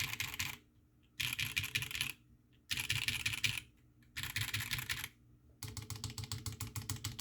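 An Iron180 custom mechanical keyboard with a forged carbon-fibre plate, brass bottom, lubed Durock POM switches and GMK keycaps is typed on in five quick bursts of about a second each, with short pauses between them. The last burst is a steadier run of even keystrokes. The overall sound is relatively high-pitched.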